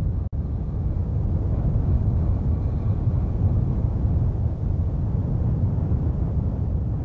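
A steady, deep rumbling noise without any clear pitch, dropping out for an instant near the start.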